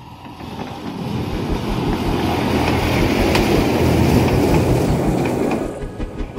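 Ride-on toy train running past on its narrow track. Its rumble and wheel clatter swell to a peak about four seconds in and fall away sharply near the end, over a steady low beat of background music.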